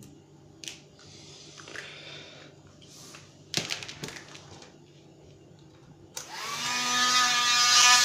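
Small USB-powered handheld vacuum cleaner switched on about six seconds in. Its motor spins up with a slightly rising whine and then runs steadily, a high whine over a hiss of air. Earlier there is a short cluster of clicks.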